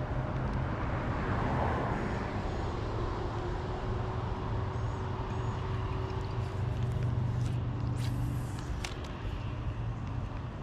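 An engine running steadily with a low hum, and a few sharp clicks about eight to nine seconds in.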